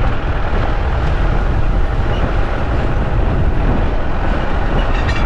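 Car driving along an unpaved dirt road, heard from inside: steady low road and engine noise from the tyres and the moving car.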